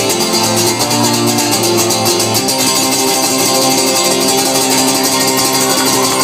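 Acoustic guitar strummed through a live sound system, playing the song's chords between chorus and verse.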